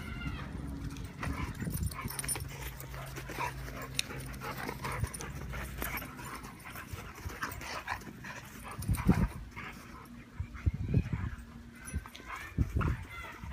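A large black dog and a smaller black-and-tan dog play-fighting: scuffling and short dog vocal sounds, with a few louder low thuds, the loudest about two-thirds of the way through and more near the end.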